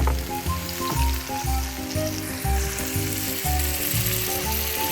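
Onion and freshly added ingredients sizzling steadily in hot olive oil in a frying pan, with background music underneath.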